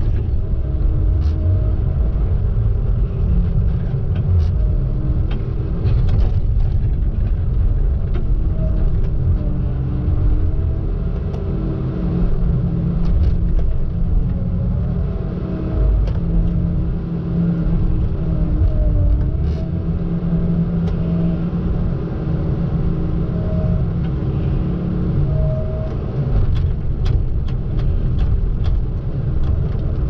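Tigercat T234 knuckleboom loader's diesel engine running steadily under hydraulic load, its pitch wavering as the boom swings and the grapple handles pine logs, with a few scattered faint knocks.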